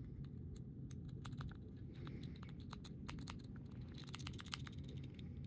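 Faint, irregular ticks and clicks of a lock pick being worked inside a pin-tumbler lock, metal catching on the pins, coming thicker about four seconds in, over a low steady hum.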